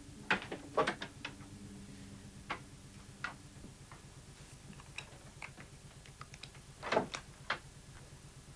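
Scattered short knocks and clicks. The loudest come in a cluster about a second in and again near seven seconds in.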